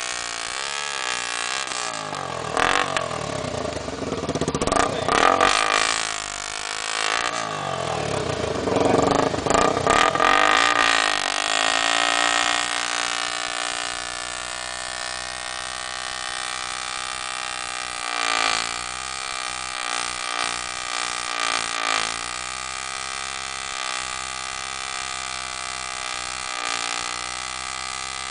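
Honda XR 250 Tornado motorcycle's single-cylinder engine revved hard several times, its pitch sweeping up and down, then settling to a steady idle, with a few short throttle blips about two-thirds of the way in.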